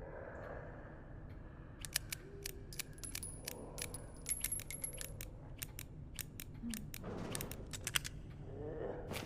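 Revolver mechanism being worked: a string of sharp, irregular metallic clicks over several seconds.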